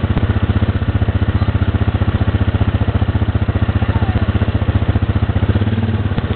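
Quad bike (ATV) engine idling close by, a steady, even chug of about ten to twelve beats a second with no revving.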